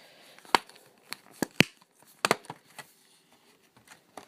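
Handling noise: about half a dozen sharp clicks and taps of hard objects being picked up and set down, spread unevenly, the loudest near the middle.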